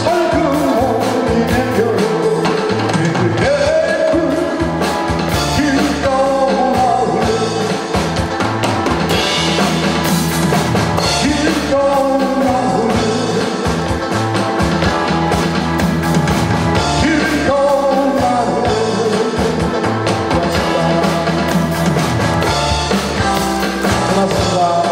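A male singer singing live into a handheld microphone over a recorded backing track with a steady drum beat.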